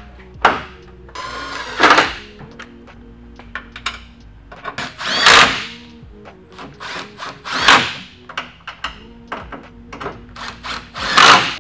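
Cordless drill-driver run in four short bursts, each spinning up and winding down, about one every three seconds, as the new grille is fastened to the GMC Sierra's front end. Sharp clicks and knocks of the plastic grille and its clips come between the bursts.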